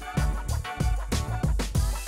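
Music with a steady beat and deep bass.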